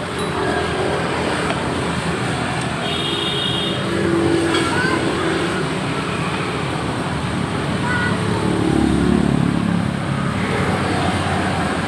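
Road traffic noise, with a vehicle engine swelling louder as it passes about nine seconds in.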